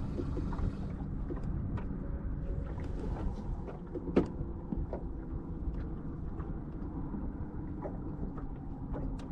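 Electric trolling motor humming steadily under the boat, with scattered light knocks and clicks; a higher hiss drops away under a second in.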